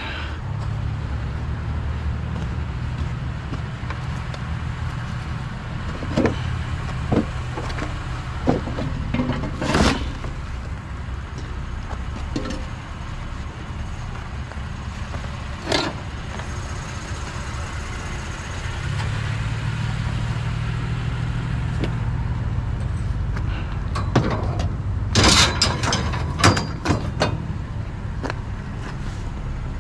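A vehicle's engine and road noise as a steady low drone, with a few sharp clicks and a cluster of knocks about twenty-five seconds in.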